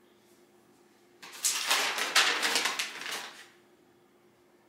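Paper instruction sheets rustling and crackling as they are picked up and handled, starting about a second in and lasting about two seconds.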